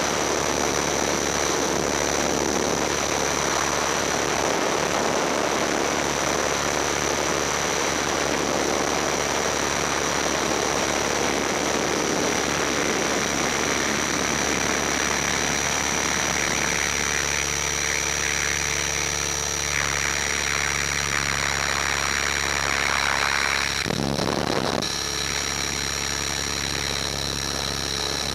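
Electric T-Rex 500 RC helicopter heard from its onboard camera in flight: a steady whirring of the rotor and motor with a high, constant whine. About two-thirds of the way through, lower humming tones come in, and there is a brief dropout a few seconds before the end.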